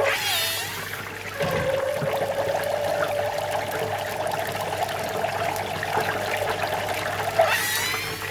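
Sausages frying in oil, sizzling, with steam escaping through the casing in a steady, fluttering, buzzing whistle at one pitch. The whistle weakens about a second in and comes back, and two short rising squeals come at the start and near the end.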